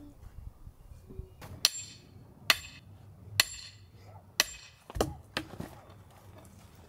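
A heavy wooden mallet striking timber: four sharp knocks about a second apart, then a few lighter knocks.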